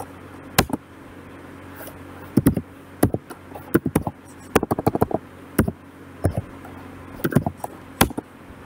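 Computer keyboard keys clicking in irregular bursts of typing, over a steady low hum.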